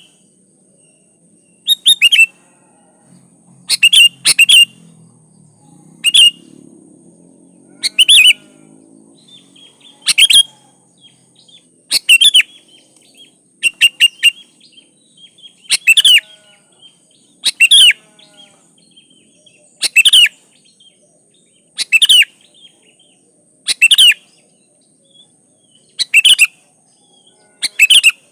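Sooty-headed bulbul (kutilang) calling: short, loud, bubbly phrases repeated about every two seconds, some given in quick pairs.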